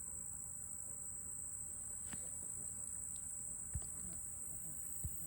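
Crickets chirring steadily in a high, even drone, with two soft low thumps near the end.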